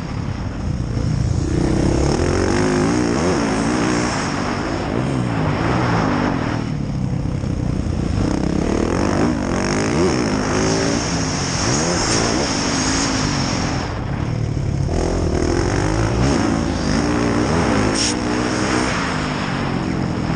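Yamaha YZ450F dirt bike's single-cylinder four-stroke engine being ridden hard, its pitch rising and falling again and again as the throttle is opened and closed, easing off briefly twice.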